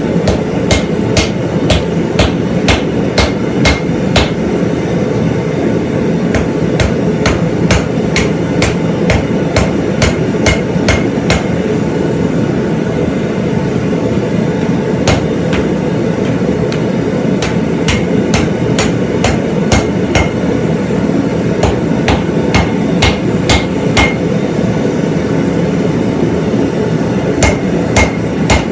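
Hand hammer striking steel on an anvil while forging a hot cut hardy: runs of quick blows, about two or three a second, each with a short metallic ring, broken by brief pauses. A steady low roar runs underneath.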